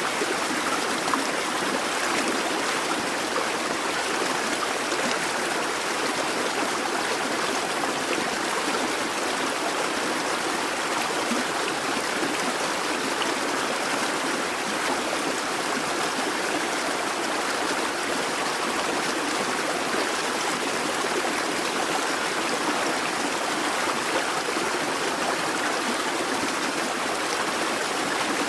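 Babbling brook: shallow water running and splashing over stones, a steady rushing burble.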